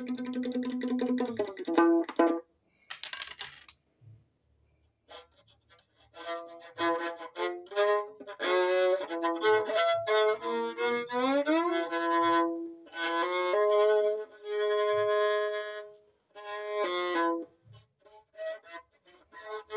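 Violin played with a bow: a held note at the start, a brief noisy scrape about three seconds in, then after a short pause a halting run of short notes with a rising slide and a few longer held notes.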